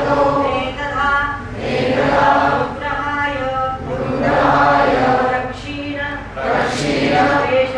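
A group of voices chanting Sanskrit verses in unison, in phrases of a couple of seconds each with short breaths between.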